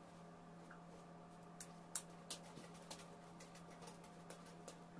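Near silence: a steady low electrical hum with a few faint clicks clustered around two seconds in.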